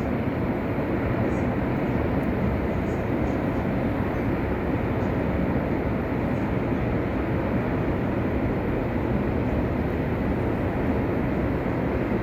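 Rough sea surf: a steady, loud low roar of waves breaking, with no single crash standing out.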